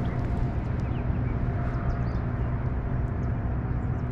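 Wind buffeting the microphone: a steady, uneven low rumble on open water, with a faint steady hum underneath.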